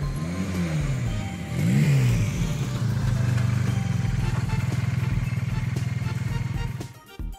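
Motorcycle engine revving twice, the pitch rising and falling, then holding a steady pitch before cutting off suddenly shortly before the end.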